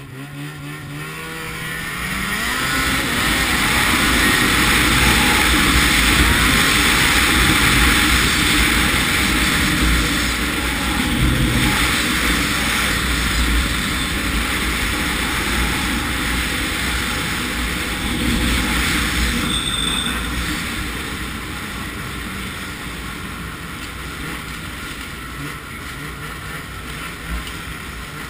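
Ski-Doo MX Z 700 snowmobile's two-stroke engine accelerating, its pitch rising over the first couple of seconds, then running hard at speed. It eases off to a lower, steadier run after about twenty seconds.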